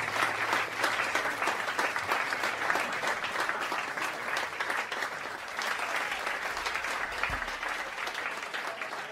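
Audience applauding: many hands clapping steadily, easing off slightly toward the end.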